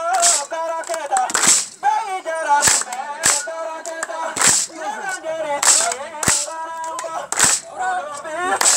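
Loud sharp percussive cracks in a steady rhythm, roughly one a second, under several voices singing.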